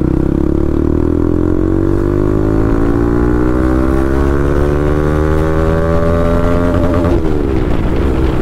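Bajaj Pulsar NS200's single-cylinder engine through an aftermarket full-system exhaust, accelerating hard with its note climbing steadily in pitch. About seven seconds in the pitch falls abruptly, then holds steady.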